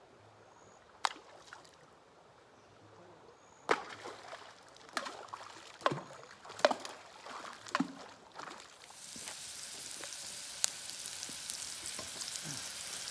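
Stones thrown into a shallow creek, several sharp plops and splashes in quick succession. From about nine seconds in, diced onion frying in a wok on a portable gas stove, a steady sizzle.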